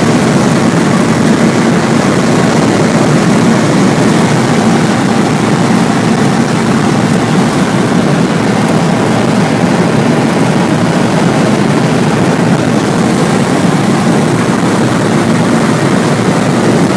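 MG TF roadster driving at highway speed: a steady, loud rush of wind and road noise over the drone of its four-cylinder engine.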